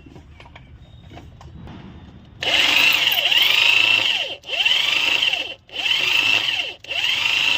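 Electric hand drill boring out a stripped bolt hole in the engine so it can take a brass threaded insert. After about two seconds of faint handling, the drill starts and runs in four bursts with brief stops between them.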